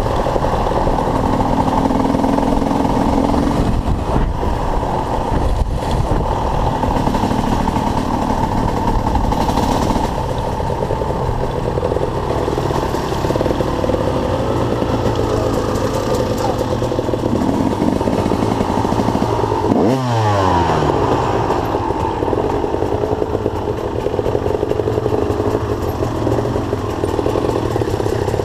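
Dirt bike engines running and revving, their pitch rising and falling. About twenty seconds in, one engine's pitch drops sharply.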